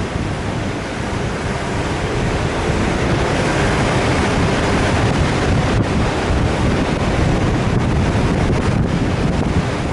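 Steady wind buffeting the microphone over a low rumble, typical of an off-road vehicle driving across desert dunes.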